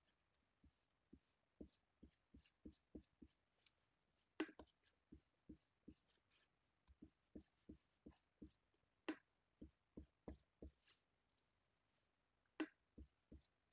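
Round blending brush dabbing ink onto a paper snowflake on a craft mat: faint soft taps, about two to three a second, with a few sharper knocks when the brush is pressed onto the ink pad.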